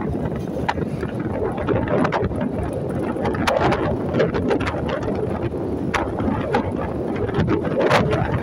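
Wind buffeting the microphone over the running noise of a moving vehicle on a concrete road, with scattered sharp clicks and rattles.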